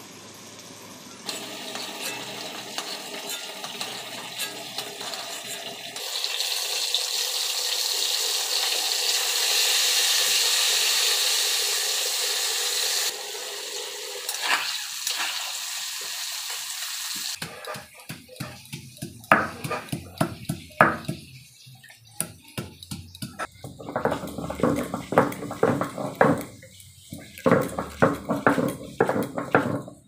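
Vegetables frying in hot oil in an iron wok, a steady loud sizzle. From about halfway through comes a run of sharp, irregular knocks: a stone roller crushing garlic cloves on a flat grinding stone.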